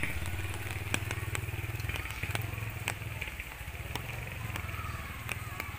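A low, steady engine rumble that rises and falls slightly, with scattered sharp clicks over it.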